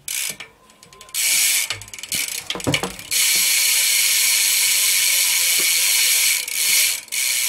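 Primo Remix rear hub on a BMX bike freewheeling, its pawls ratcheting in a fast, even buzz of clicks as the wheel spins. The buzz starts about a second in, breaks up with a few knocks, runs steadily, then drops out briefly twice near the end.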